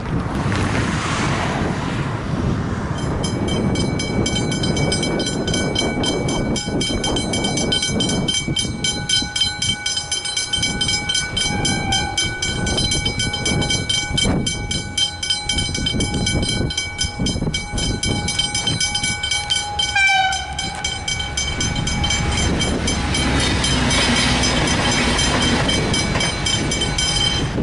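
Two Westinghouse hybrid mechanical level-crossing bells ringing rapidly and continuously. They start about three seconds in and stop near the end, when the boom gates begin to rise. A train passes through the crossing in the last few seconds, its rumble building under the bells.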